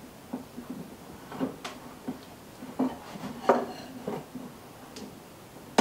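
Lamp cord being threaded and pulled through a lampshade's metal spider fitting: scattered light clicks, taps and rustles of handling, with the sharpest clicks about one and a half and three and a half seconds in.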